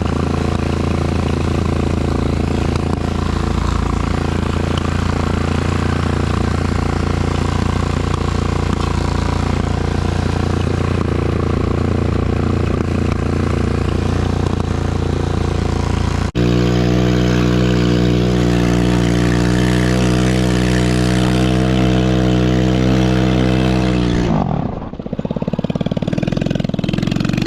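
Small ATV engine running steadily at low revs. After a cut it is held at steady high revs for several seconds, then drops back toward idle near the end.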